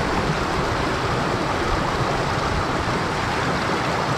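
Mountain stream flowing over a rocky bed: a steady rush of running water.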